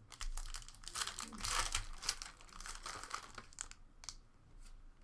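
Trading-card pack wrapper crinkling as it is torn open, with cards rustling, in a dense run of crackles that thins out after about four seconds.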